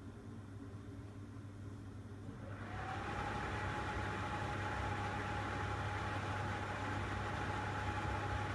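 Gas heater's blower starting about two and a half seconds in, over a steady low hum: rushing air comes up with a whine that rises and then holds steady. The heater is short-cycling, shutting off and relighting over and over without ever getting hot.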